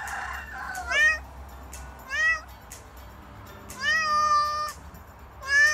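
Domestic cat meowing repeatedly: a series of calls that each rise in pitch, roughly a second apart, one near the middle held longer than the rest.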